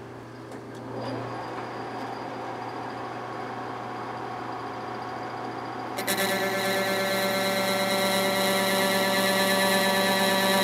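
Metal lathe running with a steady hum. About six seconds in, a parting tool cuts into a spinning brass bar, parting off a gear blank: a steady, ringing multi-tone whine that grows gradually louder as the cut deepens.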